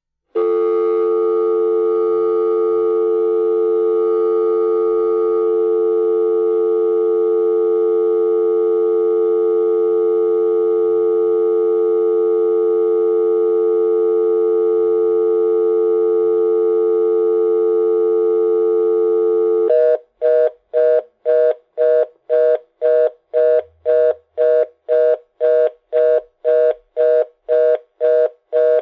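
Telephone dial tone, a steady two-note hum, that about twenty seconds in changes to a fast busy (reorder) tone beeping on and off about twice a second: the signal a line gives when the dial tone times out with no number dialled.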